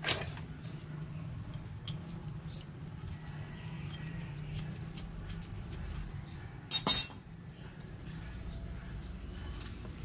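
Metal hand tools clinking at a dirt bike's front wheel hub and axle, the loudest a sharp double metallic clink about seven seconds in. A few short high rising chirps sound every couple of seconds over a low steady hum.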